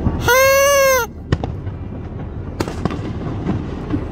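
A single horn blast of under a second, one steady note that sags slightly as it ends, followed by distant aerial fireworks bursting, with a sharp crack and a louder bang.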